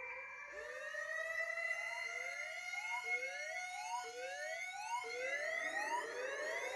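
Siren sounding: a wailing tone that rises at the start and then holds, with short rising whoops repeating about once a second over it. It signals the start of a 60-second countdown.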